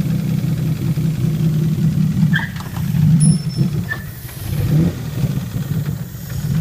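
Jaguar engine swapped into a Ford Transit van, running uncovered with the bonnet off, its revs rising and falling as the van pulls away under way. A few brief clicks sound about two and a half seconds in.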